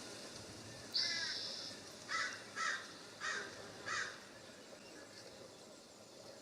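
A jay calling: a short high hiss, then four harsh, raspy calls in quick succession over about two seconds.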